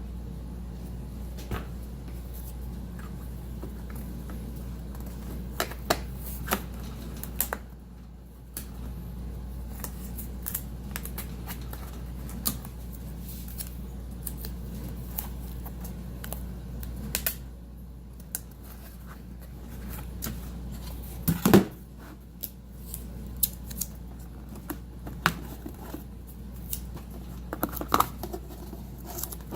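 Painter's tape being pulled and applied to wooden module pieces, with scattered small clicks and knocks as the pieces are handled, over a steady low hum. One sharper knock stands out about two-thirds of the way through.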